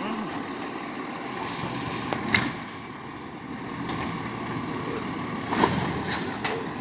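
Garbage truck engine running steadily at idle, with a sharp bang a little over two seconds in and another knock near the end.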